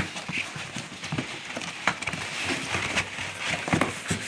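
Irregular light clicks, taps and rustles of packaging and parts being handled during unboxing.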